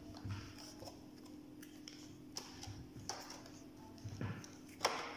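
Scattered light clicks and rustles of hands hulling strawberries, plucking off the green tops and handling the clear plastic clamshell punnets, with a sharper click near the end. A faint steady hum runs underneath.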